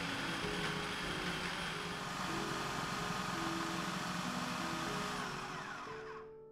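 Food processor running, its blade grinding a dry crust mixture of oats, nuts and seeds into crumbs, a steady whirring with a whine over it. Near the end the motor winds down and stops.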